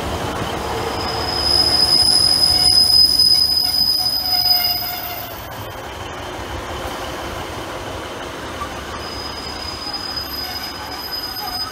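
Northern Class 150 Sprinter diesel multiple unit running slowly past along the platform: underfloor diesel engine and wheel rumble, with a high, steady squeal from about a second and a half in to about five seconds and again near the end.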